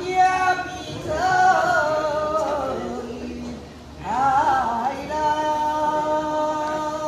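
A woman's voice chanting unaccompanied in a spirit medium's trance song, in long held notes that waver and slide. There is a short dip about halfway through, then one long steady note to close.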